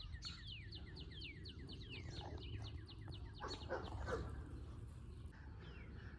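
A songbird singing a fast run of short down-slurred chirps, about five a second, fading out around four seconds in, over a faint low outdoor rumble.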